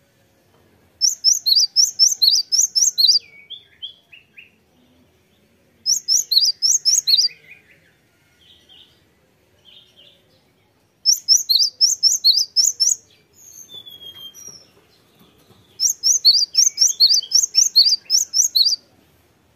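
Cinereous tit singing in four bursts. Each burst is a fast run of sharp, high, repeated notes, a few notes a second, and softer calls come between the bursts.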